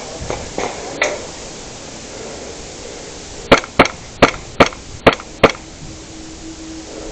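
Airsoft pistol firing six shots in quick succession, sharp cracks a little under half a second apart, about halfway through. A single click comes a second in.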